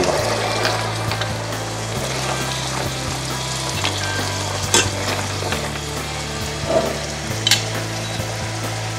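Leeks and hazelnuts sizzling in a stainless steel saucepan as the added wine reduces almost dry, stirred with a utensil that clicks sharply against the pan twice. A low hum underneath changes its pattern every couple of seconds.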